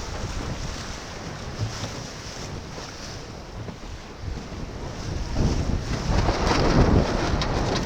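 Strong wind buffeting the microphone over water rushing and splashing against a sailboat's hull, growing louder about five seconds in.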